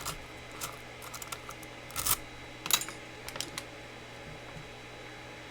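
Scattered metallic clicks and taps from a Mul-T-Lock Classic Pro lock being handled, about a dozen over the first three and a half seconds, the loudest around two seconds in.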